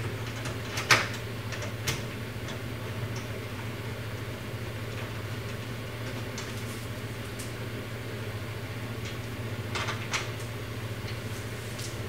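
A few sparse metallic clicks from a hand-turned Torx socket unscrewing the trunk latch bolt. A steady low hum runs underneath.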